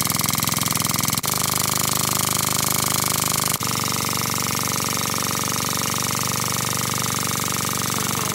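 Powered tubing bender running steadily with a fast, even pulse as it bends 1-inch steel tube around a 1-inch die. The sound dips briefly twice, about a second in and again partway through, and cuts off at the end.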